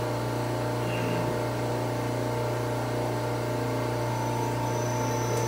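Common-rail diesel pump test bench running with an Isuzu injection pump mounted: a steady machine hum with several steady tones. A faint high whine joins near the end.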